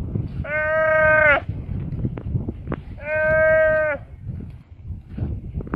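Buffalo calf bleating in distress as Komodo dragons eat it alive: two long calls of about a second each, held at a steady pitch. A low rustling noise and scattered clicks run underneath.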